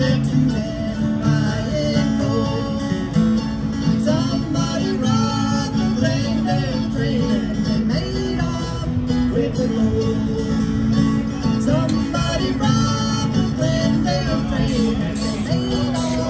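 Live country band playing through outdoor PA speakers, with acoustic guitar strumming to the fore.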